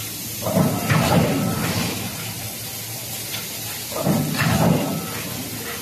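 Forging production line machinery running over a steady hiss, with two louder bursts of machine noise about three and a half seconds apart, each carrying a hiss.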